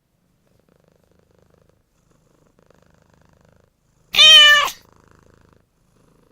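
Cat sound effect: faint purring, then one loud, short meow about four seconds in, followed by a little more faint purring.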